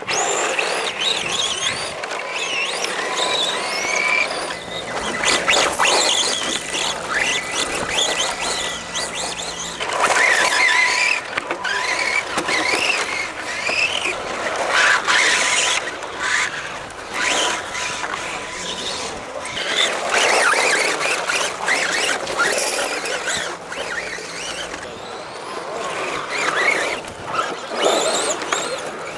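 Electric RC rally cars' motors whining, with several overlapping whines rising and falling in pitch as the cars speed up and slow down.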